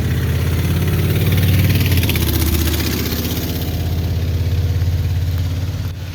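An engine running steadily close by, with a hiss that swells and fades in the middle. It drops off sharply near the end.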